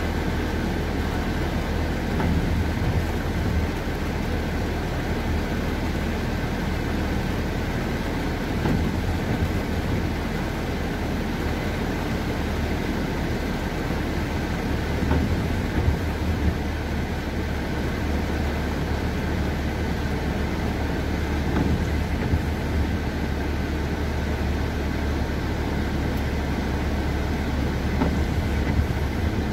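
Inside a car's cabin in the rain: the steady low rumble of the engine and of tyres on a wet road, with rain hitting the windshield and roof. A few slightly louder moments stand out along the way.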